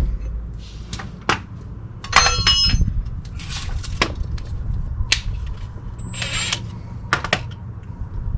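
Metal tools and car parts being handled: scattered knocks and taps, with a ringing metallic clink about two seconds in and two short rustling scrapes.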